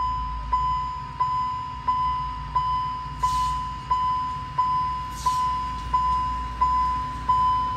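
Railway level-crossing warning bell ringing a steady ding about one and a half times a second, over the low running of the approaching Alishan Forest Railway DL48 diesel locomotive. Two short hisses come about three and five seconds in.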